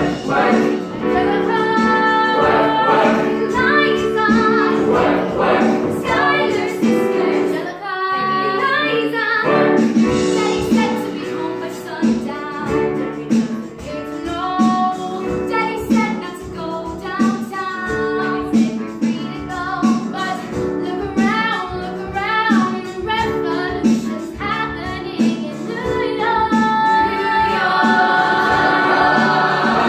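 Young women's voices singing a musical-theatre song over instrumental accompaniment, with a short break in the music about eight seconds in.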